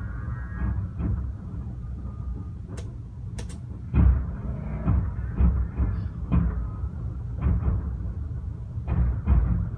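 Fireworks bursting in a rapid series of booms and sharp cracks over a continuous low rumble, the loudest boom about four seconds in.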